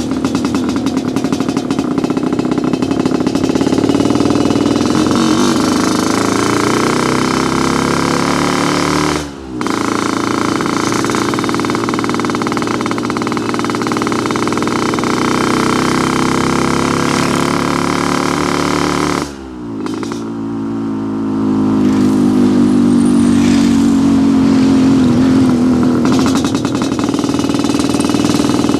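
Yamaha RX-King two-stroke single-cylinder motorcycle engine running and being revved up and down repeatedly, its exhaust tuned for the deep 'ngorok' (snoring) note. The sound drops away briefly twice, at about nine and nineteen seconds.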